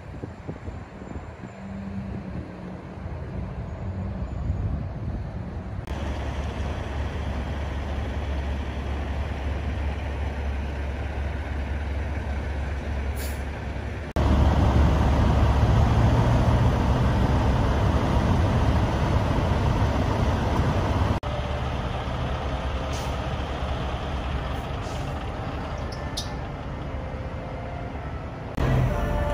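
Steady low rumble of idling diesel semi-truck engines and passing vehicles. The level jumps abruptly several times and is loudest through the middle. A few short high hisses come in the second half.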